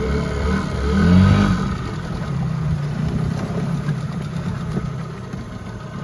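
Small boat's outboard motor running steadily, picking up revs and at its loudest about a second in.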